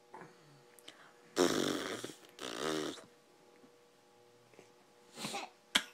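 A baby's deliberate fake coughs: two in quick succession about a second and a half in, then a softer one near the end.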